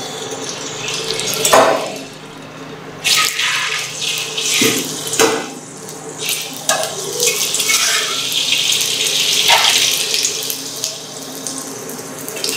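Ginger-garlic paste sizzling in hot oil in a stainless steel kadai, with a steel slotted spoon scraping and clinking against the pan as it is stirred. The sizzle starts about three seconds in and grows louder.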